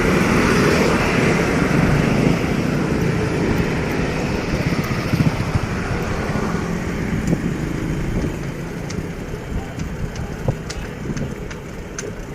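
A motor vehicle's engine running close by amid road noise, fading gradually over the second half, with a few faint ticks near the end.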